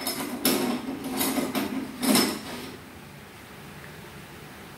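Metal transmission parts, gears and shafts of a 2009 Honda CR-V automatic transmission, clinking and clanking as they are handled and moved on a workbench. There are several clanks in the first two and a half seconds, then it goes quieter.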